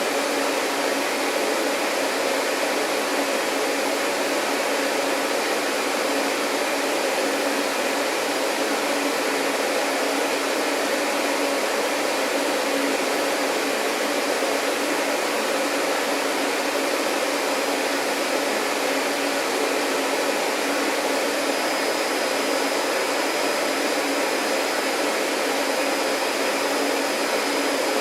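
Vacuum cleaner running steadily: a continuous, even rushing hiss with a faint hum underneath, never changing in level. A faint high whine joins about three-quarters of the way through.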